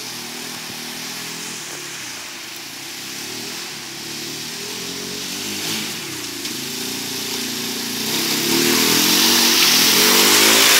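Four-wheeler (ATV) engine revving up and down as the quad approaches through mud, growing louder, with mud spray and splashing from the tyres in the last few seconds.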